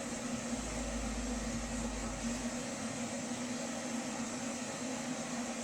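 Steady hiss of heavy rain falling, with a low steady hum underneath.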